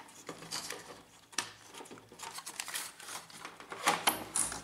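Hand screwdriver driving screws into a Brother laser printer's frame: an irregular run of small clicks and scrapes, with sharper knocks about a second and a half in and again near the end.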